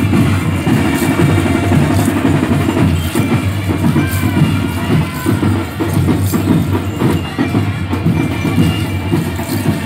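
Marching band playing in a street parade, percussion keeping a steady beat.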